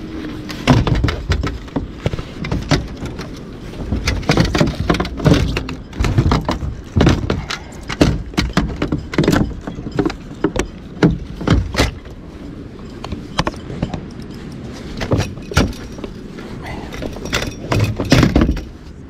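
Irregular knocks, bumps and rattles of gear being handled on a kayak, coming in quick clusters with short gaps between them.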